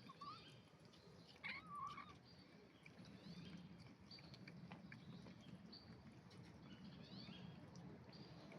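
Faint kitten mewing, a short call and then a longer wavering one in the first two seconds, over faint scattered bird chirps.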